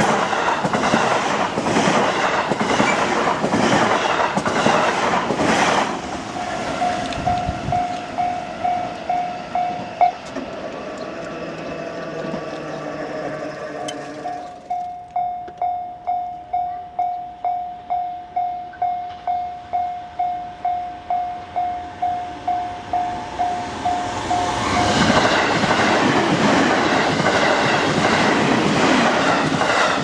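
An electric commuter train runs over the level crossing for about the first six seconds, its wheels clacking over the rail joints. Then the crossing's electronic warning bell rings in a steady ding about twice a second. Near the end a white 281 series Haruka limited express runs past with a rising rush of train noise over the bell.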